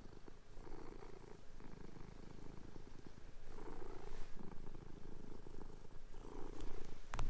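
Domestic cat purring close up, swelling and fading with each breath. A sharp click comes just before the end.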